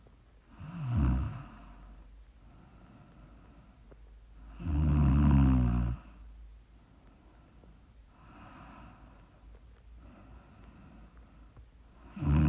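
A person snoring in sleep: three loud snores, the last starting near the end, with softer breaths in between.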